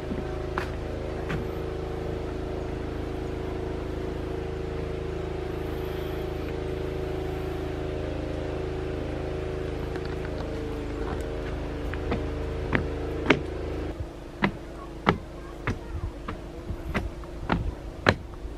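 A steady engine-like hum with several even tones, which cuts off abruptly about fourteen seconds in. Sharp, separate knocks come irregularly over the last six seconds or so.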